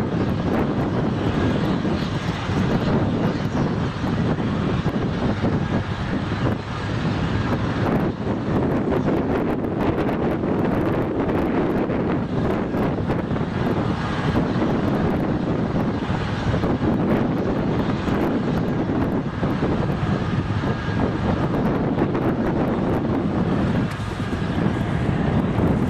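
Aérospatiale AS 332 Super Puma helicopter running on the ground: steady twin-turbine whine and main-rotor noise at a constant pitch.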